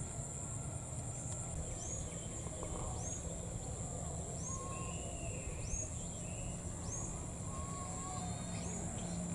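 Outdoor bird and insect ambience: a steady high-pitched insect drone, with a small bird repeating a short high call about once a second and a few brief whistled notes from other birds.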